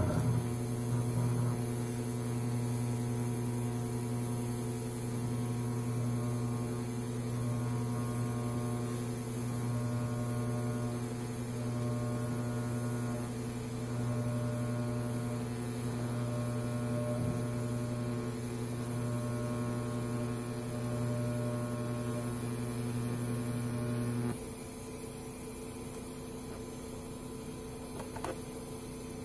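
Miller Syncrowave 250 TIG welding arc on steel angle iron, giving a steady electrical hum that cuts off abruptly about 24 seconds in as the arc is broken. A fainter steady hum from the welder carries on after it.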